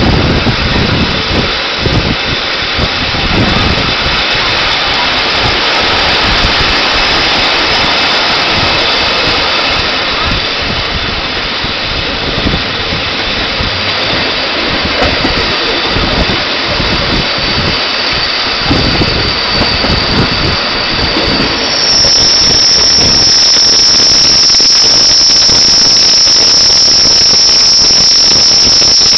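Rhaetian Railway train running, heard from an open carriage window: wheels rumbling on the track with wind buffeting the microphone. About three quarters of the way in, a loud, steady, high-pitched wheel squeal sets in and holds as the train rounds a tight curve.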